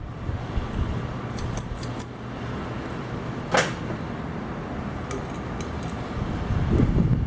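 Many ceiling fans running together: a steady whir with a low hum, a few light ticks, and one sharper click about three and a half seconds in.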